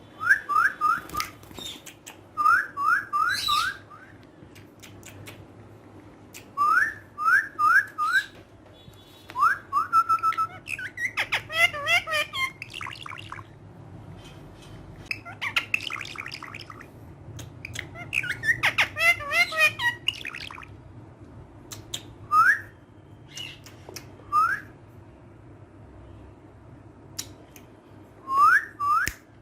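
Pet parrot whistling short rising notes in quick runs of three or four, broken by bursts of fast chattering squawks, with sharp clicks scattered between.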